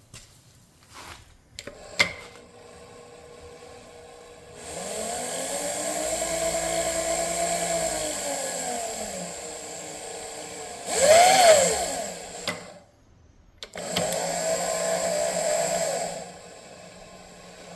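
Power-feed motor on a vertical milling machine running in three stretches, its whine rising in pitch and falling back as the speed is turned up and down. The shortest run, about eleven seconds in, is the loudest and highest. A few sharp clicks come between the runs.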